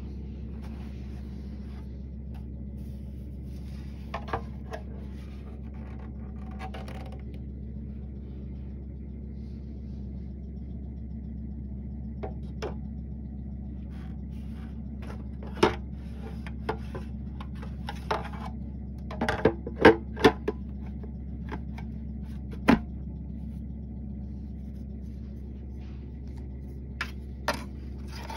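Scattered clicks and knocks of a plastic Vicks humidifier being handled and taken apart, loudest in a quick cluster about two-thirds of the way through, over a steady low hum.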